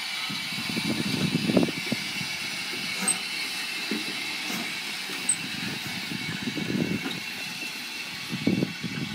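Steam locomotive, a 2-10-0 Decapod, moving slowly: a steady hiss with irregular low thumps and knocks.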